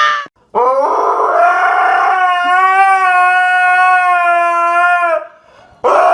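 A dog howling: one long howl that rises at its start and then holds a steady pitch for about four seconds, with a second howl starting near the end.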